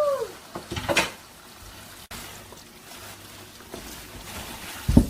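Kitchen handling of washed leafy greens and their container: a couple of sharp clicks about a second in, then a dull thump just before the end.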